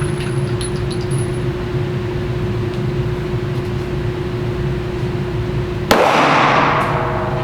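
A 9mm pistol fired once about six seconds in: a sharp shot followed by a long, echoing ring-out. A steady hum runs underneath before the shot.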